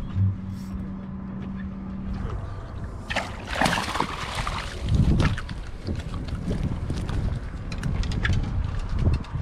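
Water splashing and sloshing around a small fishing boat, in several louder surges. A steady low hum stops about two seconds in.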